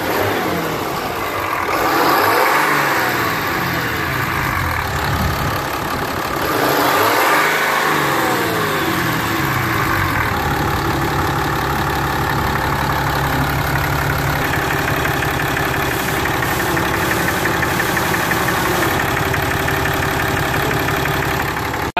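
Brand-new 6.7 L Cummins inline-six turbo diesel, about 1,200 miles on it, running. Its pitch rises and falls twice, about two and seven seconds in, then it idles steadily.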